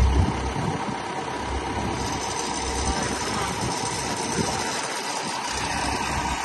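A John Deere loader tractor's diesel engine idling steadily, with wind buffeting the microphone in uneven low rumbles.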